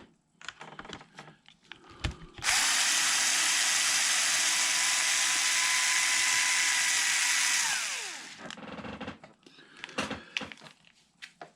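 Small cordless electric driver running steadily for about five seconds, backing out one of the 2.5 mm hex bolts, then winding down with a falling whine. Light handling clicks come before and after it.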